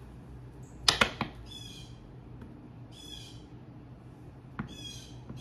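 A bird calling repeatedly outside, a harsh, raspy call about every second and a half. Two sharp clicks about a second in.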